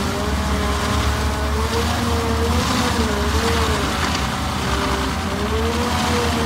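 Cat 308 E2 CR mini excavator's diesel engine running steadily under load, driving a hydraulic stump-grinder attachment that is grinding a stump down into wood chips. A whine wavers up and down in pitch as the grinder's load changes, over a constant low engine hum.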